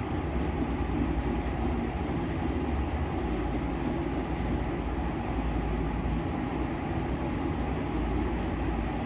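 A steady low rumble of background noise with a faint hum, unchanging throughout.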